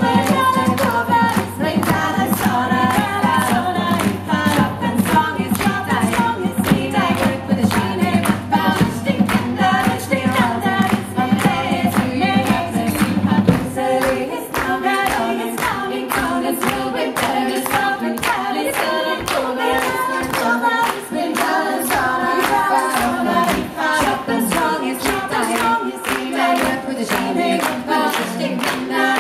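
Female vocal ensemble singing a medieval-style song in harmony over steady rhythmic hand-clapping. A low steady drone beneath the voices stops suddenly about halfway through.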